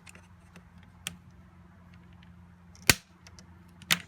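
Plastic clips of a Samsung Chromebook's LCD screen bezel snapping as the bezel is pried loose: a small click about a second in, then two loud sharp snaps about three and four seconds in.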